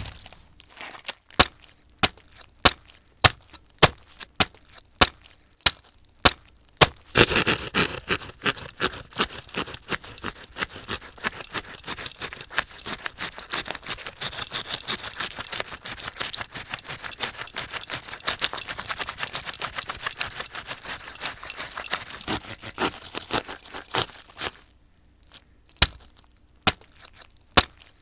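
Gory foley effects for a head being crushed and a leg hacked off. A hard hit, then sharp cracking blows a little under two a second, then a long dense stretch of crackling, crunching and tearing, which thins back to separate hits near the end.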